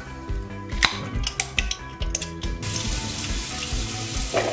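Background music with a steady beat. Over it, a few sharp clicks from handling a glass jar of chickpeas, then tap water running onto chickpeas in a plastic strainer over a stainless steel sink, starting a little past halfway.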